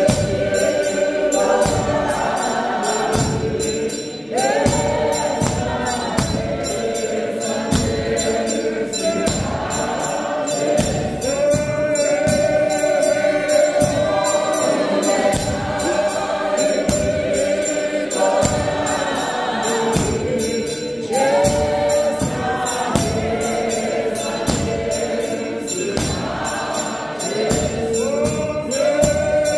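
A church congregation singing a Zulu hymn together, many voices held in long lines, over a steady beat of hand claps.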